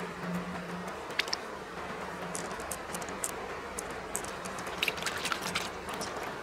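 Shallow stream water running steadily over rock, with scattered small sharp clicks as a handful of small plastic beads are scooped up and gathered in a palm, most of them in the second half.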